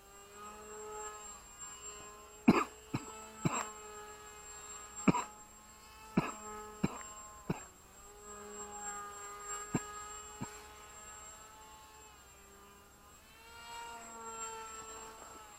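RC plane's motor and propeller humming in the air, swelling and fading with slight shifts in pitch as the plane passes near and away. Several sharp knocks cut through it, the loudest about two and a half and five seconds in.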